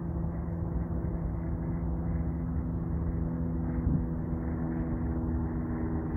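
A steady low mechanical drone, held at one pitch with several even tones over a low rumble. A light tick comes about four seconds in.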